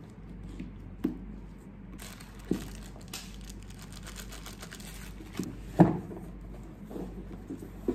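Crinkling and rustling of something being handled close by, with a few soft thumps, the loudest about six seconds in.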